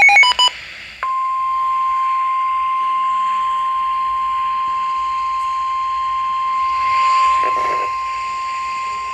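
The tail of the EAS digital header, a brief flurry of data tones, then about a second in the NOAA Weather Radio 1050 Hz warning alarm tone starts. It is a single steady high-pitched tone, held unbroken over faint radio static, and it announces an emergency alert, here a flash flood warning.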